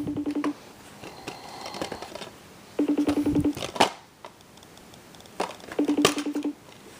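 Three short buzzes about three seconds apart, each a steady low hum with a fast, even rattle, with a few sharp clicks between them.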